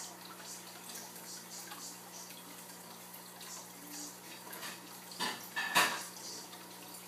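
Turtle-tank filter running with a steady low hum and water trickling. Two short, sharp sounds about five and six seconds in are the loudest.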